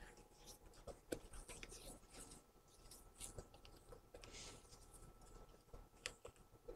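Faint, irregular scraping and swishing of a spatula folding macaron batter around a stainless steel bowl, with a few small clicks: the batter being mixed by hand (macaronage).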